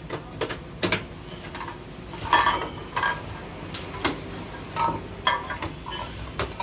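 Irregular light clicks and knocks as a plastic toy microwave is handled and turned over.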